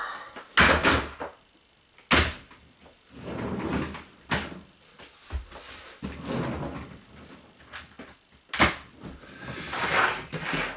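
Handling noise as boxes and household things are moved about: several sharp knocks and bumps with stretches of scraping and rustling in between.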